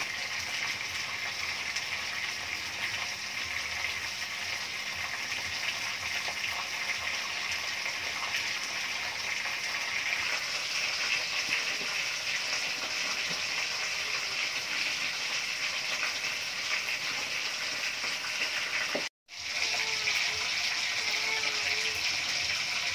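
Fish frying in hot oil in a wok, a steady sizzle. After a sudden break near the end, water splashing and pouring.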